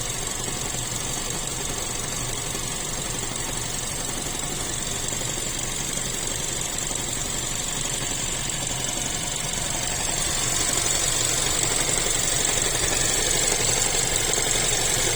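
Chery Tiggo 7 Pro Max engine running with a knock coming from under the hood, growing slightly louder about two-thirds of the way through. The owner cannot say what is knocking: no error codes are stored, and the knock comes and goes.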